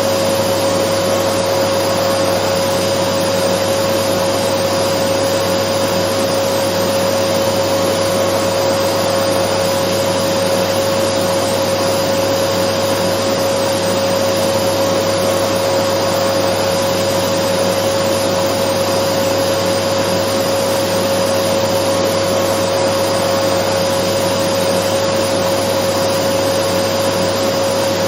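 Dyson vacuum cleaner running steadily: an even rushing noise with a constant whine through it, unchanging throughout.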